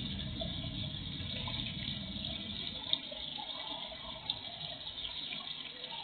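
Small pond fountain splashing steadily into a garden fish pond, with a low rumble that thins out near the end and two faint ticks about three and four seconds in.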